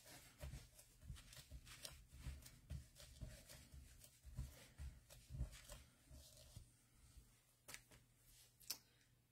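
Near silence with faint, scattered taps and rustles of rubber stamps, ink pad and paper being handled during stamping, thinning out in the last few seconds.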